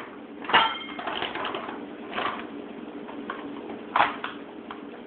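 A bag of cacao powder crinkling as it is handled and tipped to scoop powder into a measuring cup, with a few sharp knocks and clinks of the cup; the loudest, with a short ring, comes about half a second in and another about four seconds in.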